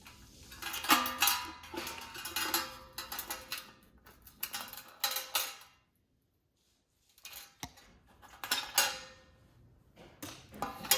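Small metal parts of a space heater's element assembly clinking and rattling in several bursts as they are handled and pulled out. There is a brief dead silence a little past halfway.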